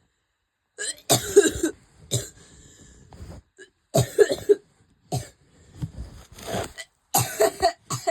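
A person in a coughing fit: repeated runs of harsh coughs, clustered in quick bursts with short pauses between them.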